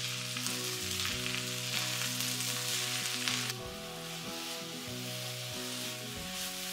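Fresh mint leaves and green chillies sizzling in hot oil in a pan, stirred with a wooden spatula, over quiet background music. The sizzling eases off about three and a half seconds in.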